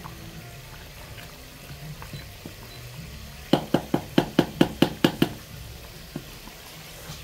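A wooden spoon rapped about ten times in quick succession against the rim of an aluminium cooking pot, each knock with a short metallic ring, starting about halfway through. Under it runs a steady low hum.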